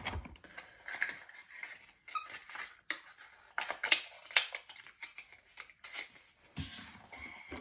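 Small cosmetic containers and their cardboard packaging being handled on a table: scattered light clicks, taps and rustles, the sharpest about four seconds in.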